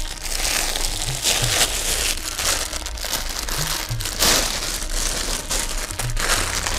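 Clear plastic bag crinkling and rustling as a hand-knitted wool jacket is pulled out of it and handled, in irregular bursts.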